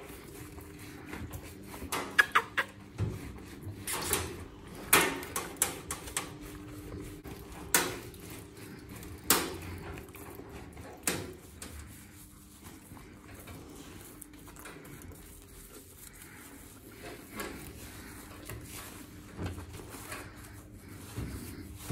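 Hands and a shampoo-soaked mesh bath sponge scrubbing lather into a boxer's wet coat: wet rubbing and squelching with scattered sharp clicks and knocks, most of them in the first half, over a faint steady hum.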